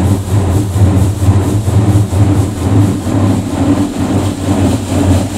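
High-pressure water jets of an Aquatus Prime car wash on its touchless cycle, spraying and drumming on the car's body and windows, heard from inside the closed car. A steady low hum runs underneath, and the spray's loudness pulses unevenly.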